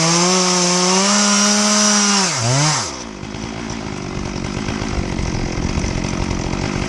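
Chainsaw in a chainsaw mill running at high, steady revs, then about two and a half seconds in its pitch dips and falls as the engine comes under load. It runs on at lower revs with a rougher sound, ripping lengthwise through the log.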